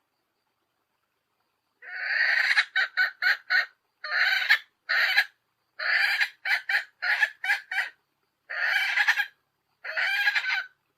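A hen's calls: phrases of a longer call followed by a quick run of short clucks, starting about two seconds in and repeating several times. It is a recorded female call played to rouse males.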